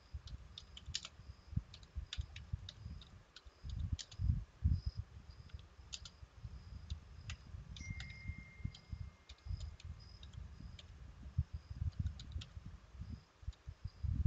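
Computer keyboard being typed on: irregular clicking keystrokes with low thuds, at an uneven, hunt-and-peck pace.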